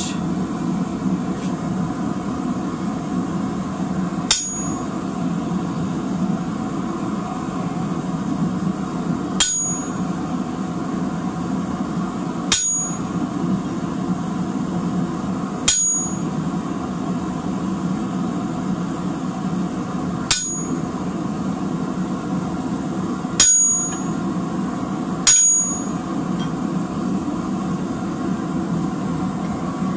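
Hammer striking a hand-held chisel on a red-hot square steel bar on an anvil: seven sharp, ringing blows a few seconds apart, the last two the loudest, over a steady low hum. The chisel is cutting lines along the bar's edges for a pineapple twist.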